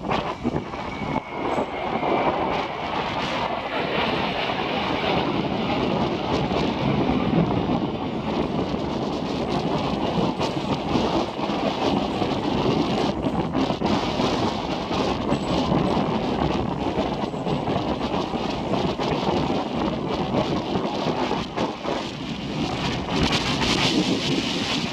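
Steady, rumbling jet roar from Blue Impulse Kawasaki T-4 jets in flight, mixed with strong wind buffeting the microphone.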